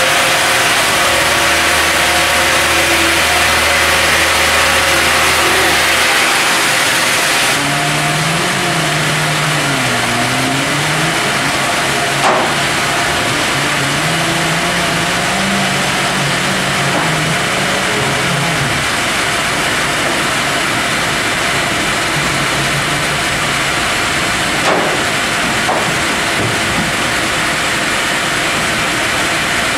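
LBL Brenta CD horizontal band sawmill working. There is a loud steady hiss of the band saw cutting the log, which eases about seven and a half seconds in. Then a motor whine rises and falls in pitch as the carriage and hydraulic board-handling arms move, with two sharp knocks.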